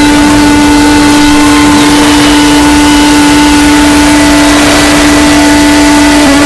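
Deliberately overdriven, clipping 'earrape' sound effect: one steady buzzing tone held under a thick wash of distortion noise, very loud throughout.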